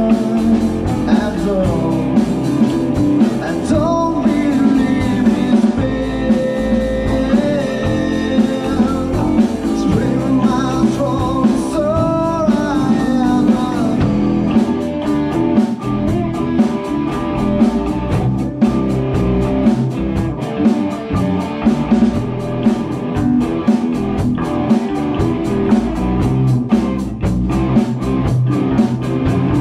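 A rock band playing live, with drum kit, electric guitars and a singer, the drums keeping a steady beat.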